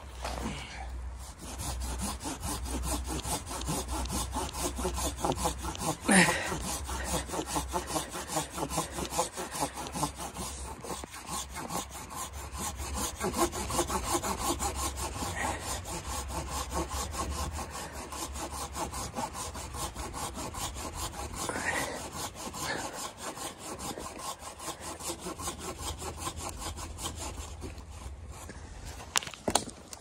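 Small hand saw cutting through a dead conifer log in quick, even back-and-forth strokes, the teeth rasping through the wood. One sharper knock about six seconds in.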